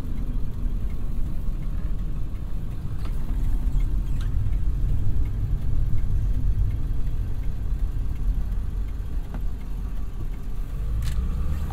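A 1999 Ford F-350's 7.3 L Powerstroke V8 turbodiesel running as the truck drives, heard from inside the cab, with a steady low rumble of engine and road. A few faint clicks come through along the way.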